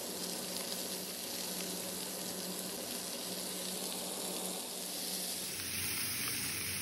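Lamb ribs searing in their own rendered fat in a nonstick frying pan, a steady sizzle.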